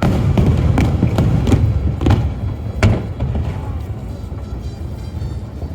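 Aerial fireworks bursting in quick succession: an irregular string of booms and bangs, several a second, over a continuous low rumble, with the loudest bang about three seconds in.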